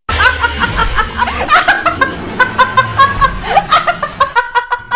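A woman laughing loudly and hard, a high-pitched run of short repeated bursts that comes faster near the end.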